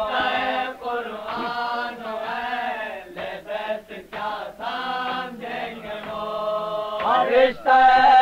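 Male voices reciting an Urdu salam (a devotional elegy) as an unaccompanied chant, holding the lines on long sung notes. The sound is muffled, with a dull top end, as on an old live tape recording.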